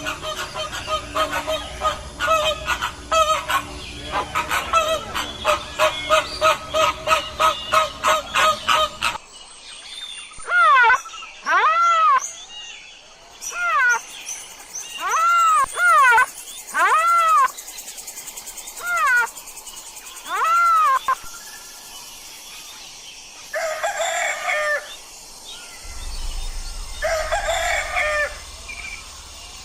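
Domestic fowl calling in a series of separate clips. A fast, even run of honking calls lasts about nine seconds. A string of single calls follows, each rising and then falling in pitch, and two short crows come near the end.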